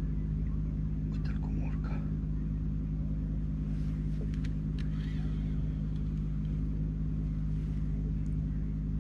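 A boat motor running with a steady low hum. A few brief clicks and knocks sound over it about a second in and again around four to five seconds in.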